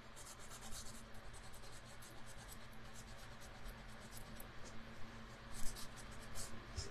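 Faint rubbing of a baby wipe scrubbing stray paint off a wooden picture frame, in a run of quick short strokes.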